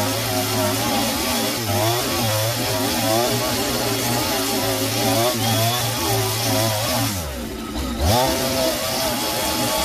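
Gasoline chainsaw running hard while boring into the end of a log to hollow it out, its engine note wavering as the chain cuts. About seven seconds in the engine eases off briefly, then revs back up.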